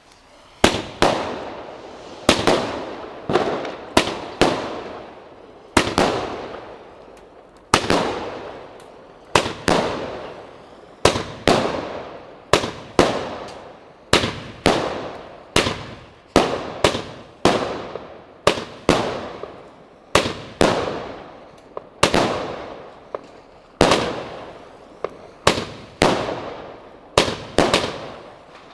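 WECO Big Crackles firework battery firing shot after shot, one every second or two. Each shot is a sharp bang that trails off in crackling over about a second.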